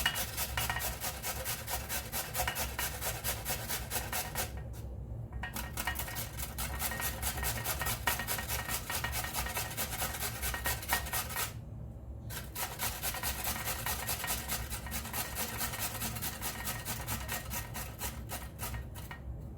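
Raw peeled potato being rubbed back and forth over a hand grater in rapid, repeated rasping strokes, with brief pauses about five seconds in, about twelve seconds in and near the end.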